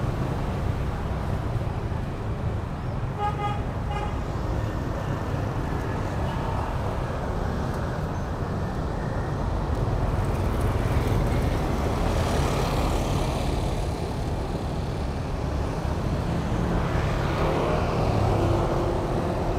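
Steady street traffic rumble from passing motorbikes and cars, with two short vehicle-horn toots about three and a half seconds in and a vehicle swelling past about two-thirds of the way through.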